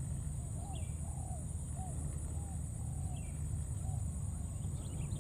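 Short rising-and-falling animal calls, roughly one or two a second, over a steady low rumble and a constant high hiss.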